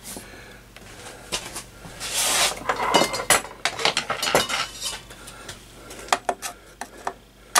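Screwdriver and other metal tools clinking and tapping on the sheet-metal amplifier chassis and its capacitor cover, a string of light metallic clicks with a brief rasp about two seconds in.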